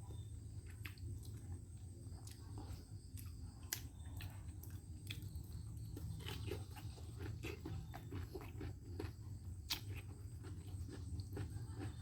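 A person eating fried fish and rice: chewing and biting, with many small, irregular clicks and crunches.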